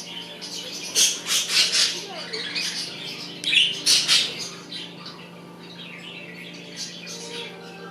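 Pet budgerigars chattering and squawking, with loud bursts of harsh calls about a second in and again around three and a half to four seconds, over a steady low hum.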